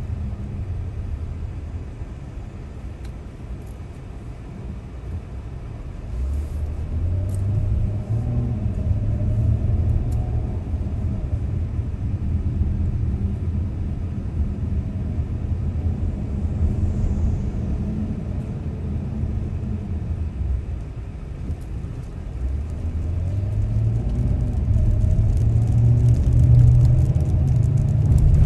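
Car engine and tyre noise heard from inside the cabin: a low rumble that swells as the car pulls away from a stop about six seconds in, then rises again with acceleration near the end.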